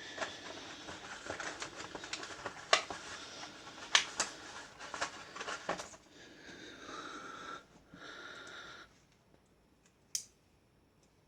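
Rustling and handling noise with a handful of sharp clicks and taps as small magnets and copper 2p coins are set into a display tray, then a quieter stretch with one last click.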